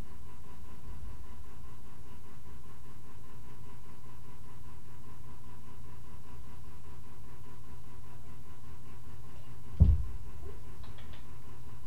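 Steady low room hum with a faint high steady tone, and one dull thump near the end.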